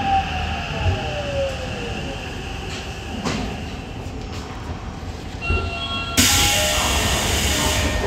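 Tokyo Metro 8000 series subway train braking into a station, heard from inside the car: the traction motor whine falls in pitch over the first few seconds under the rumble of the wheels. About six seconds in, a sudden loud hiss of air comes as the train comes to a stop.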